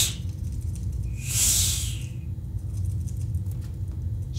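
A barn owl's hiss, performed for the owl puppet: one drawn-out breathy hiss lasting about a second, starting a little past a second in, with the end of a shorter hiss right at the start, over a steady low hum.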